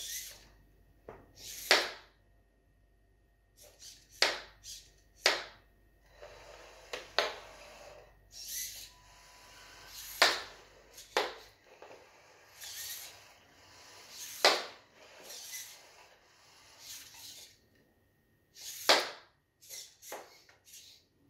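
A homemade Lego robot arm swinging a knife down at mushrooms on a plastic cutting board. It makes a series of sharp swishes and knocks, about a dozen at irregular gaps of one to three seconds, over a faint steady high whine.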